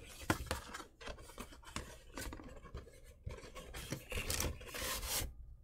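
Handling of figure packaging and its inner paperboard: scattered small clicks and scrapes, then a longer rubbing scrape about four seconds in.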